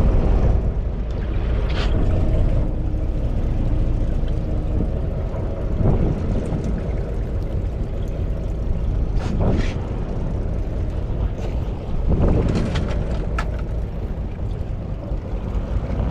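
Fishing boat's engine running steadily, a low rumble, with a few short knocks and rattles.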